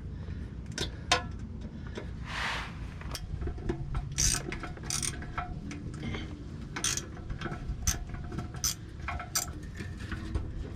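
72-tooth gimbal hand ratchet clicking in irregular runs as the oil pan riser bolts are worked loose by hand, with scattered sharper metal clicks.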